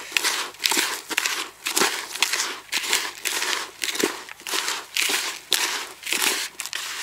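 Hand kneading damp, crumbly fishing groundbait mixed with pearl barley in a plastic bucket: gritty rustling and crunching squeezes, about two strokes a second.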